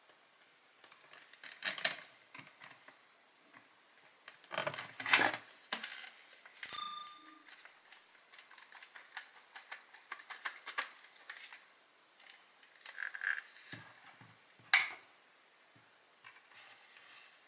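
Scattered clicks, knocks and rustling of small parts being handled, with a brief ringing tone about seven seconds in.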